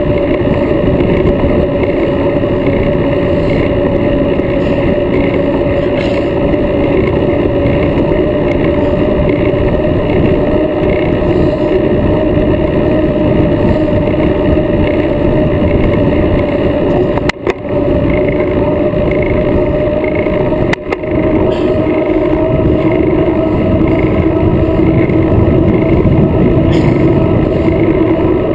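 Wind and tyre noise picked up by a bicycle-mounted action camera riding at speed on asphalt: a steady rushing with a held hum that rises slightly in pitch near the end. The sound briefly drops out twice, past the middle.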